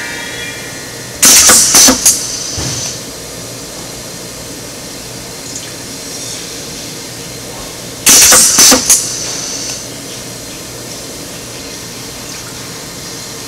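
A foot-pedal-operated pneumatic tabletop machine cycles twice, about a second in and again about eight seconds in. Each cycle is a burst of a few sharp clicks and hissing compressed air lasting about a second. A steady low hum runs underneath.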